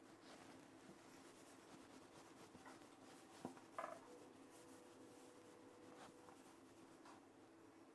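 Near silence, with faint rubbing of hands rolling dough into a thin rope on a wooden tabletop, and two small knocks near the middle.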